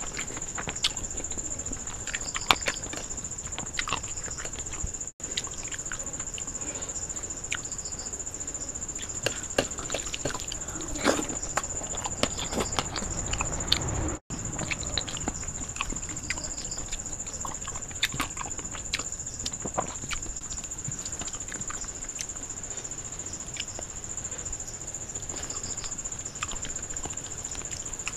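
Close-up eating by hand: wet chewing and lip smacks, and fingers squishing and mixing rice with fish curry on a steel plate, making many small scattered clicks. A steady high-pitched hum runs behind it.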